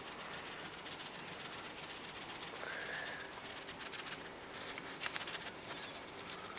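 Faint rustling and light taps of a paper coffee-filter funnel being shaken over a plastic water bottle as chalk powder sifts through, with a cluster of taps about five seconds in. A faint bird call sounds in the background.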